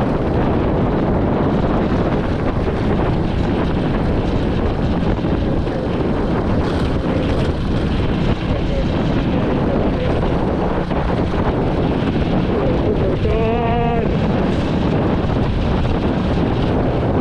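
Steady wind buffeting on the microphone over the running noise of a vehicle on the move. About 13 seconds in there is a brief, wavering, pitched sound, likely a vehicle horn.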